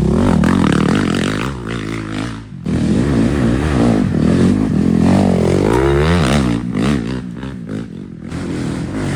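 Off-road dirt bike engines racing past, revving up and down with throttle and gear changes, several engines overlapping.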